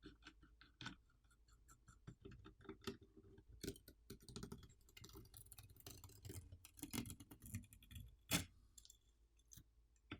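Faint, irregular clicks and scrapes of a small Phillips screwdriver working out the screws that hold down a mini PC's fan assembly, with a sharper click about eight seconds in.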